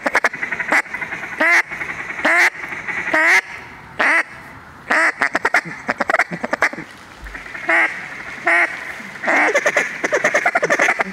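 Hand-held duck call blown in a series of loud quacks. Single calls come about a second apart, broken by runs of fast, short chattering notes at the start, in the middle and again near the end.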